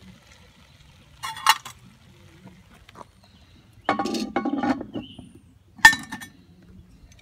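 Dishes and utensils clinking in a few separate spells: a short run of clinks about a second in, two longer ringing rattles around four seconds, and one sharp, loud clink near six seconds.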